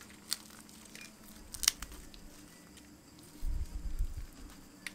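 Crisp, flaky baked börek pastry crackling and tearing as it is pulled apart by hand, with a few sharp crackles, the loudest about a second and a half in. A low muffled rumble of handling follows at around three and a half to four seconds.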